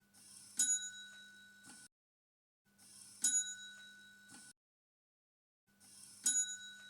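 A small bell struck once and ringing out, three times about three seconds apart, each strike the same, with a faint low hum under each ring.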